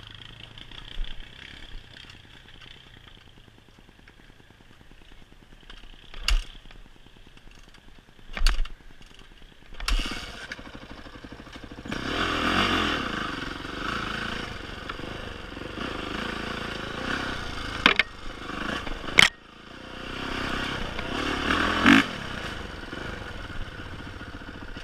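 A motor vehicle's engine revving up and settling twice in the second half, with several sharp metal knocks and clanks before and between.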